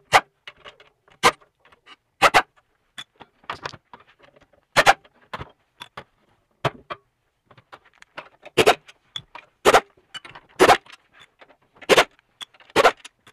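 Pneumatic impact wrench rattling in a dozen or so short trigger bursts as it spins out the bolts of a dewatering pump's aluminium outer casing.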